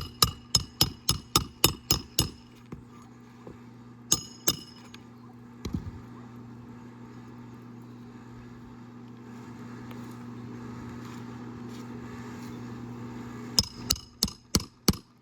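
Hammer driving roofing nails into a new asphalt shingle: a quick run of sharp blows, about four a second, then two more, then another run of blows near the end. A steady low hum runs underneath.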